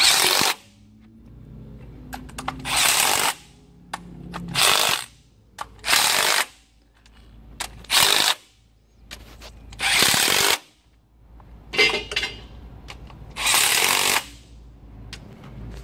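Cordless impact wrench running down rocker arm bolts on a Volvo D13 diesel in about eight short half-second bursts, a second or two apart, snugging each bolt before it is torqued to 44 ft-lb.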